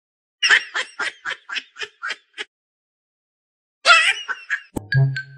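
A person giggling in a quick run of about ten short, high-pitched laughs. A pause follows, then another burst of laughter. Near the end a click and then chiming music start.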